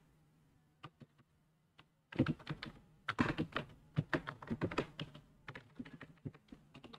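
Typing on a computer keyboard: a couple of isolated key clicks in the first two seconds, then a quick, uneven run of keystrokes from about two seconds in.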